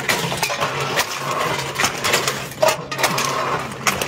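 Aluminium drink cans clattering and being crushed in a steel can-crushing press: a run of sharp metallic clinks and knocks over a steady low hum.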